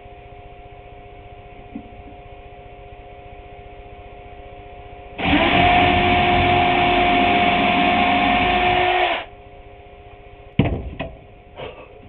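Electric power tool motor running steadily for about four seconds, starting about five seconds in and cutting off sharply. A few sharp knocks follow near the end over a low background hum.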